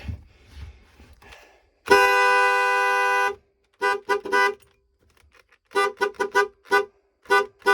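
Camper's horn sounded: one long steady blast of about a second and a half, then a run of short toots at the same pitch.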